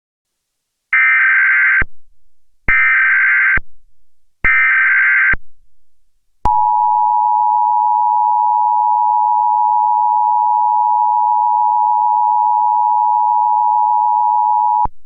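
Emergency Alert System header: three short bursts of screeching digital data tones, each just under a second, followed by the EAS two-tone attention signal, two steady tones sounding together for about eight seconds before cutting off.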